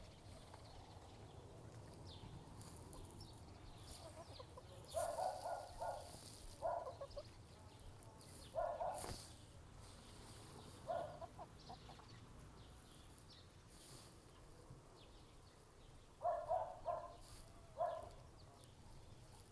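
Chickens clucking in short bursts, a few calls at a time with pauses between, and faint brief high sounds in between.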